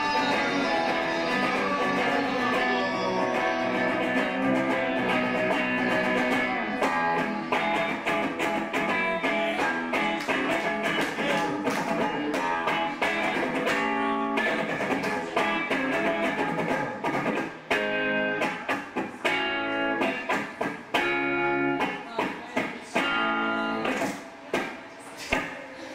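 Electric guitar played loud through an amplifier: dense, sustained playing at first, breaking up after a few seconds into choppier strokes and, in the last third, short stabbed chords with sudden gaps between them.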